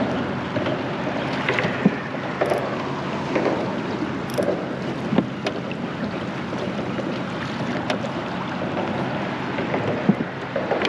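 Steady wind rumbling on the microphone and water lapping around a small boat, with a few sharp knocks.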